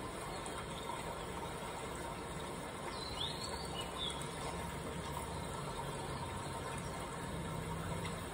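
Faint steady background noise with a few faint, short high chirps about three and four seconds in.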